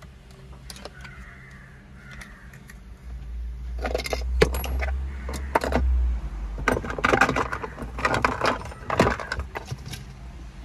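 Metal hand tools and parts clinking, jingling and rattling while a car's steering wheel is being refitted. The sound starts about four seconds in as a dense run of light clicks and clatter over a low rumble, and it lasts several seconds.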